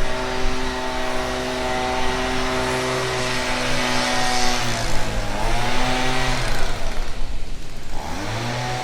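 Chainsaw engine running at a steady pitch, then briefly dipping and swinging in pitch and turning louder and rougher about five to eight seconds in, before rising back to the same steady pitch near the end.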